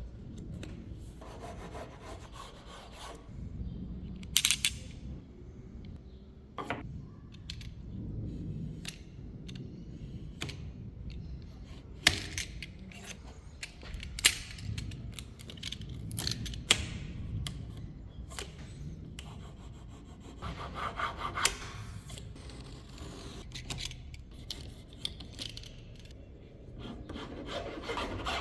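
Woodworking sounds: scattered sharp knocks and taps of wood and tools, with a stretch of scraping or rubbing about twenty seconds in.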